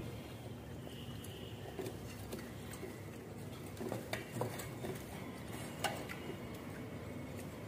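Quiet hand-eating sounds: fingers mixing rice on stainless steel plates, with scattered light clicks and taps against the steel dishes, clustered about four to six seconds in, over a steady faint background noise.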